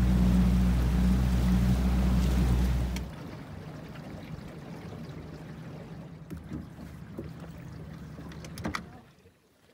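Boat motor running steadily under way, then cut off suddenly about three seconds in. The boat glides on with water noise against the hull and small knocks, and a short sharp knock near the end as the bow reaches the sandy shore.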